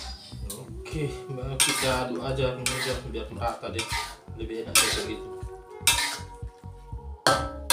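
A cooking utensil scraping and clanking against a wok while stirring instant noodles and vegetables, in a series of irregular strokes about one a second.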